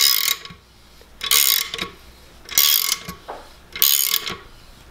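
Socket ratchet wrench clicking in four short bursts about a second apart as it is swung back and forth. It is turning the bolt of a plus nut setting tool, drawing up a pre-bulbed threaded insert so its legs spread and grip the back of the sheet metal.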